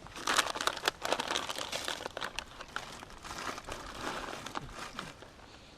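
Plastic snack packaging crinkling and rustling as it is handled, with many small crackles. It is loudest in the first two seconds, then continues more softly.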